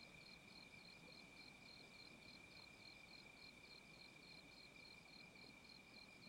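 Faint crickets chirping: a steady high trill with a pulsing chirp above it, about four pulses a second.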